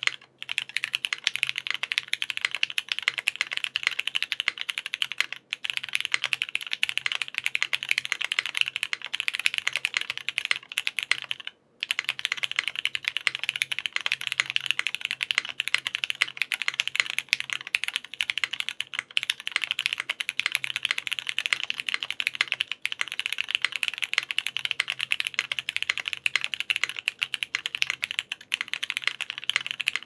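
Fast, continuous typing on a mechanical keyboard with lubed Cherry MX2A Brown tactile switches in a gasket-mounted, foamless aluminium-plate ORI CLS-3//88: a dense stream of keystroke clacks, with a brief pause about five seconds in and another about twelve seconds in.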